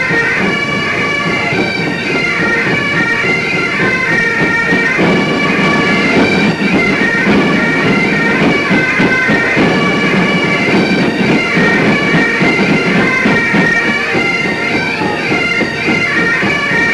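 Great Highland bagpipes playing a tune over their steady drones.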